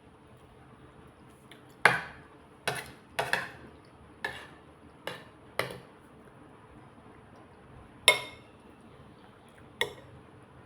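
Eating utensils clinking against a dish: about eight sharp clinks at irregular intervals.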